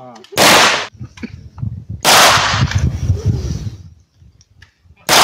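Gunshots at an outdoor range: one shot about a third of a second in and another about two seconds in, the second trailing off for over a second, then a third shot right at the end.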